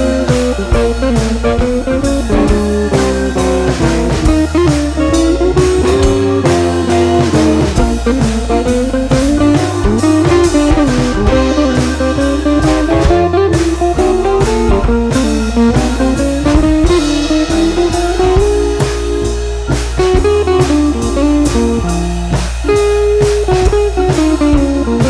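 Background music: a guitar melody over drums with a steady beat.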